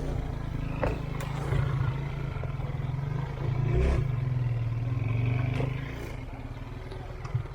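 Off-road vehicle engine running and revving, its low drone swelling in the middle and easing off near the end.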